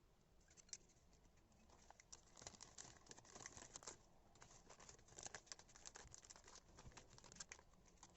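Faint, irregular crinkling, rustling and light taps of hands handling paper, plastic and washi tape, with a few crisper crackles along the way.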